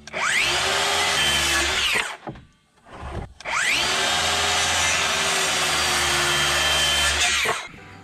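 DeWalt circular saw cutting 2x4 lumber twice: each time the blade spins up with a rising whine, runs through the board, and winds down. The first cut lasts about two seconds; after a short pause a second, longer cut runs about four seconds.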